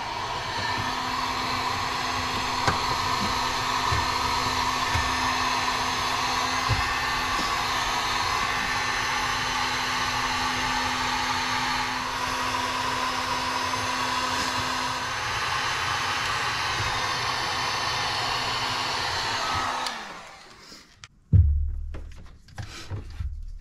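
Handheld electric heat gun blowing steadily while heating shrink tubing over wire splices. It stops about twenty seconds in, followed by a few knocks.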